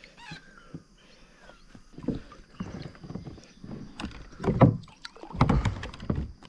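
Water splashing and sloshing around a fishing kayak as it is worked through the water, in a few heavier swells about two, four and a half, and five and a half seconds in.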